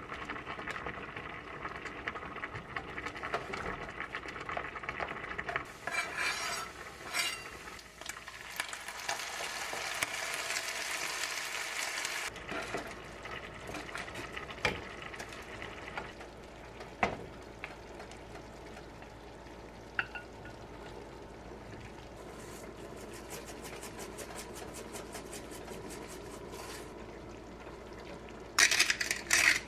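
Tomato sauce with shrimp and pasta sizzling in a nonstick frying pan, stirred and scraped with wooden chopsticks, with occasional clicks of the chopsticks against the pan. Near the end there is a short, loud rattle as sugar is shaken in from a glass jar.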